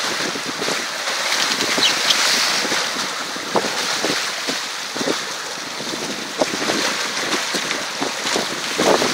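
Wind buffeting the microphone over the steady rush of a sailing yacht's wake, with small splashes now and then.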